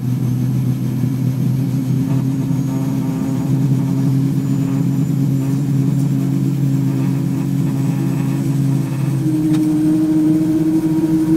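Saab 340 General Electric CT7 turboprop running at ground idle, heard in the cockpit as a steady hum. About nine seconds in there is a click, and a new whine begins and slowly rises in pitch as the second engine starts to spin up.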